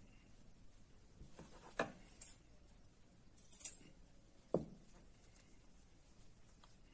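Faint scissor snips, a few short sharp clicks spread over a couple of seconds, then a single duller knock.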